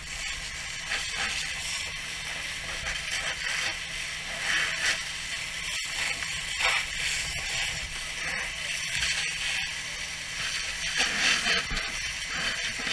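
Fire hose nozzle spraying a water stream onto burning debris: a steady rushing hiss that swells and dips, with a few faint clicks.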